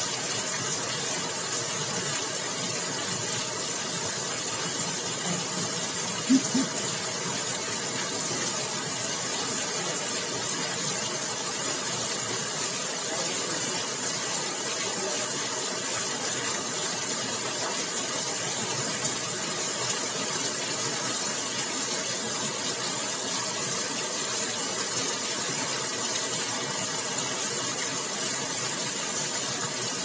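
Heavy rain in a storm falling steadily, a dense even hiss. About six seconds in, two quick low knocks sound close together.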